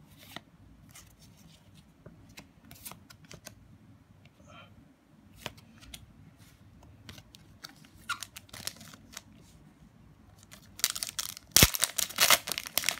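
Trading cards being slid and flipped one over another in the hand, with soft scattered clicks and rustles. About eleven seconds in, a loud run of crinkling starts as a foil booster pack wrapper is handled.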